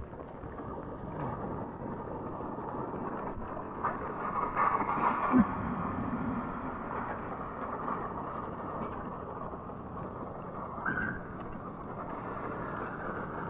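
Surf water rushing and splashing around a stand-up paddleboard riding through broken waves, heard close at the board. A sharper splash comes about five seconds in.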